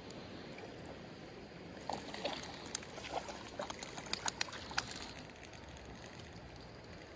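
A hooked trout splashing and thrashing at the surface as it is reeled in close to the bank, a quick cluster of sharp splashes over the steady rush of the creek.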